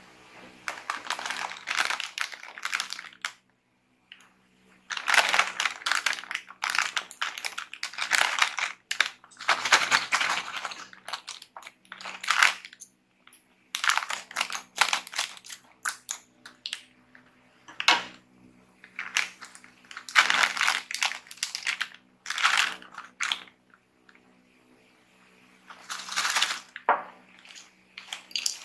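Crinkling of a foil snack bag of crackling chips as it is handled, squeezed and cut open with scissors, in repeated bouts of crackle with short pauses between them.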